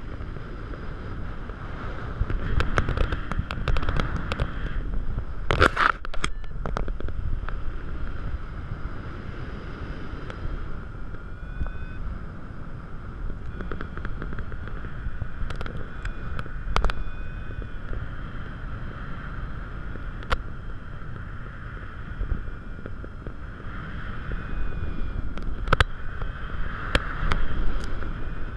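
Wind rushing over a GoPro in flight under a paraglider: a steady buffeting rumble on the microphone, with scattered sharp clicks and knocks, the loudest about six seconds in.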